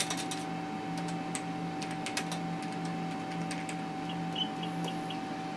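Ultrasound scanner console being worked, irregular key clicks over the machine's steady electrical hum, then a few short high beeps about four seconds in.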